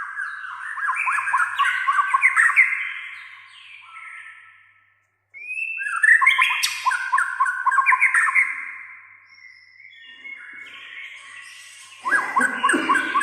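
White-rumped shama (murai batu) singing: fast runs of varied whistles and trills. The song stops for a moment about five seconds in and turns harsher and lower-pitched near the end.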